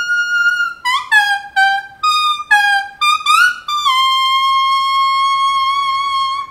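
A leaf held to the lips and blown like a reed, Hmong leaf-blowing: a long high held note, then a quick run of about eight short notes stepping up and down, then a long lower held note. The melody speaks a phrase, "My sweet bonnie girl, oh, where are you?"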